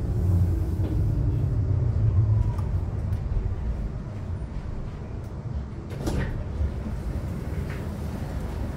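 Low rumble of a Škoda ForCity Smart Artic tram heard from inside the passenger car. It dies away a few seconds in as the tram slows to a halt. A single clunk comes about six seconds in.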